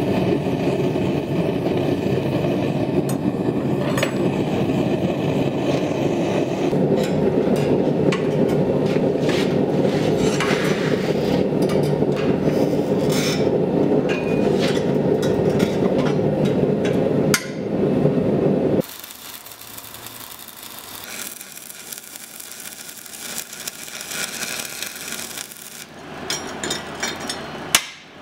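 Propane gas forge burner roaring steadily, with a few metallic clinks; it cuts off abruptly about two-thirds of the way through. After that a quieter shop hiss with scattered light clinks and a sharp knock near the end.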